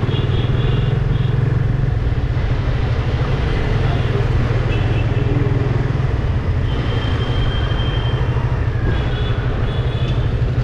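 Yamaha FZ25's single-cylinder engine running steadily at low road speed in city traffic, heard from the rider's position with road and wind noise. A few short high-pitched tones come in near the start and again in the later part.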